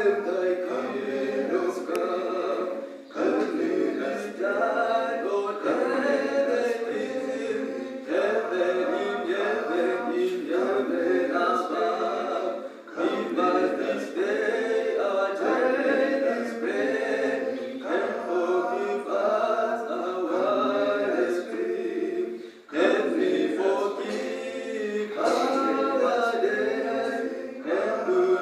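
A mixed choral group singing a cappella, a hymn sung in phrases with short breaths between them.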